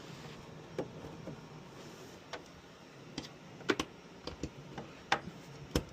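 Irregular light clicks and knocks of a power cable and plug being handled and plugged into the back of a 3D printer, about a dozen in all, the loudest few in the second half, over a faint steady hum.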